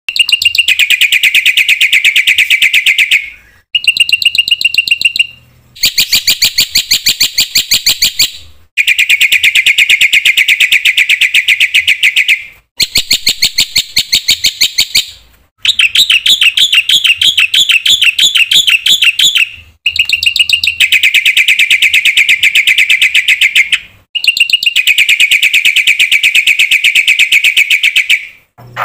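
Black-winged myna (jalak putih) singing loud, rapid trills, used as a lure recording. The trills come as a series of phrases of two to four seconds each, with short pauses between them.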